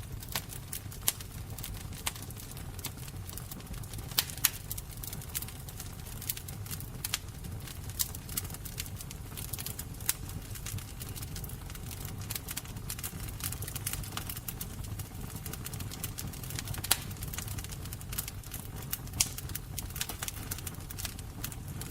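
Wood fire burning: a low steady rumble under frequent irregular crackles and pops, with a few louder snaps.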